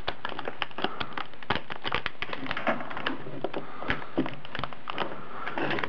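Plastic packaging around a new hard drive being handled: irregular crinkling with many small clicks and crackles.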